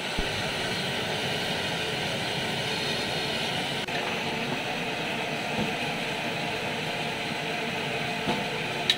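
Hot oil sizzling and bubbling steadily as a batch of battered manchurian balls deep-fries in a kadai, with a single sharp tick near the end.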